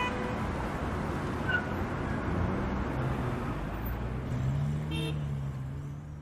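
Car traffic ambience: a car engine running amid road noise, with a brief horn toot about five seconds in, fading out at the end.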